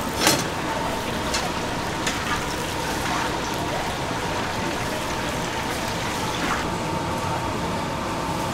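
Steady hissing background noise with a faint steady hum, broken by a few light clicks and taps of metal tongs handling a piece of fried chicken. The loudest click comes just after the start.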